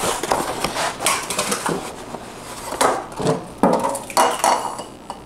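Raw eggs being knocked and cracked on hard kitchen surfaces, with the crackle of shells breaking open: a run of sharp knocks and crunches, the strongest about a second in and several more past the middle.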